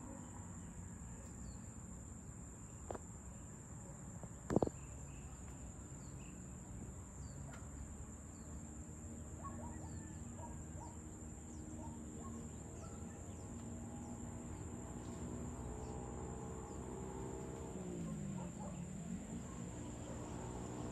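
Evening insect chorus: crickets making a steady high drone, with short bird chirps scattered through it. A sharp click stands out about four and a half seconds in. From about halfway a faint, low, distant pitched hum joins in and dips briefly near the end.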